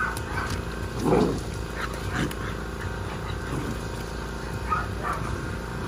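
Presa Canario puppies growling as they wrestle and play-fight, in short rough bursts, the loudest about a second in.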